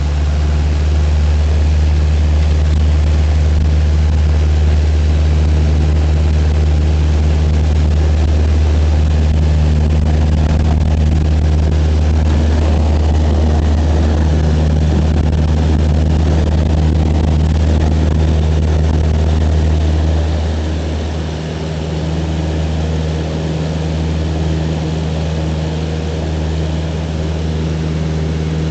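Cessna 172's piston engine and propeller at takeoff power, heard from inside the cabin: a loud, steady drone through the takeoff roll, easing slightly about two-thirds of the way through.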